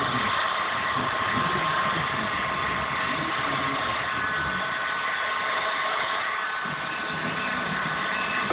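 Electric heat gun running steadily, blowing a hiss of hot air with a thin steady whine from its fan motor, as it heats window tint film on a car's rear glass.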